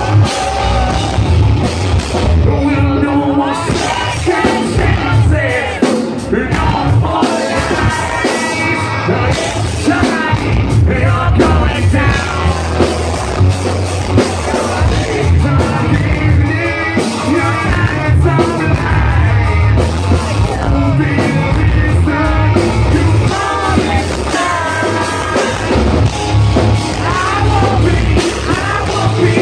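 Rock band playing live and loud: a singer over electric guitars, bass and drums, heard close to the stage.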